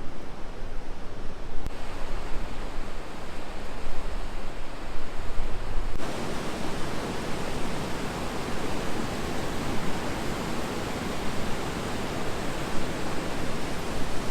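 Steady rush of river water falling through a deep rock gorge. It becomes louder and fuller suddenly about six seconds in.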